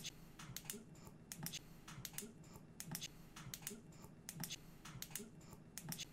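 Faint, quick clicking and tapping, a few sharp strokes a second with soft thuds under some of them.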